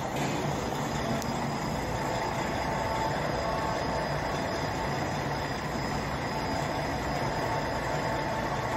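Semi-gantry crane hoist winding up a loaded steel muck bucket from the excavation shaft. It makes a steady mechanical running noise, with a thin high whine held through most of the lift over a low hum.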